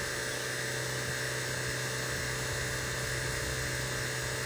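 HVAC vacuum pump running with a steady hum, evacuating an air-conditioning system early in the pull-down, while the vacuum is still in the thousands of microns and falling.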